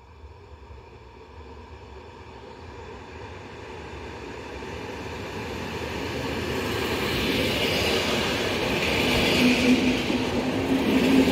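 EN57 electric multiple unit approaching along the station track and passing close by, its wheel and rail noise growing steadily louder throughout. A steady low hum joins in as the cars go past near the end.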